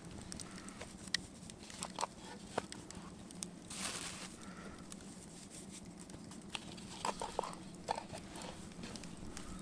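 Wood campfire crackling with scattered sharp pops. Alongside it come soft rustling and scraping as hands work a ball of dough in a metal mess tin, with a brief rustle about four seconds in and a cluster of clicks near the end.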